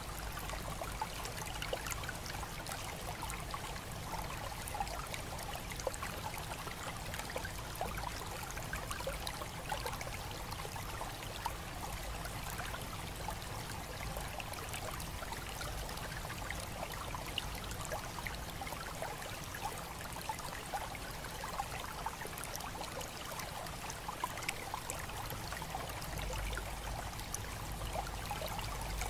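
Hot spring water trickling steadily into a rock-lined bath, with many small drip and splash ticks over the flow.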